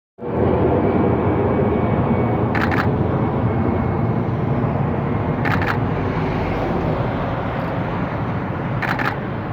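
Jet engines of an airliner taking off, a loud steady roar that eases slightly towards the end. Three short bursts of a Canon 5D Mark III's shutter firing in continuous mode cut through it, about three seconds apart.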